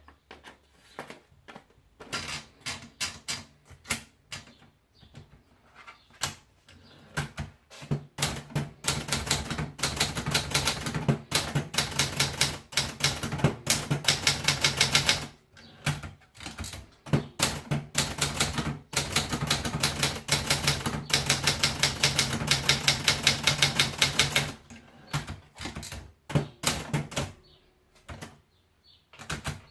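Triumph Gabriele typewriter being typed on: rapid runs of key strikes with short pauses between them. The strokes are sparse at first, then fast and continuous for long stretches, and scattered again near the end.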